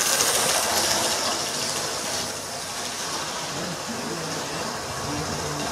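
Model train running past on its track: a steady rushing rumble of wheels and electric motor, loudest over the first two seconds as the locomotive passes close, then settling to a quieter running noise.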